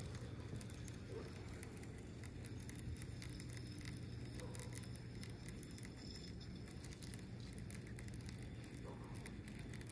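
Baitcasting reel being cranked on a retrieve: a faint, steady whir with fine rapid ticking, over a low steady hum.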